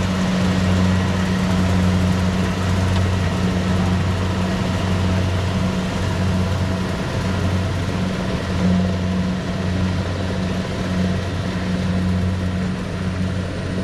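Rice combine harvester's engine running steadily at a constant speed, a deep hum with threshing noise over it.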